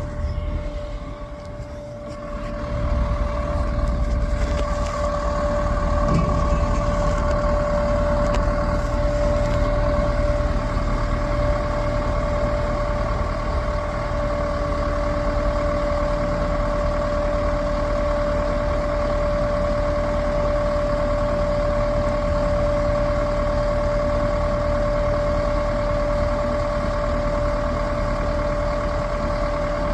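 Large diesel engine of heavy equipment running steadily with a constant high whine over a low rumble. It picks up about two to three seconds in and then holds an even note.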